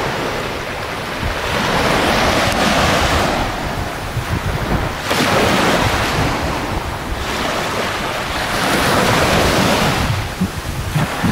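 Small surf breaking and washing up a sandy beach, the rush of water swelling and fading every few seconds. Wind buffets the microphone with a low rumble underneath.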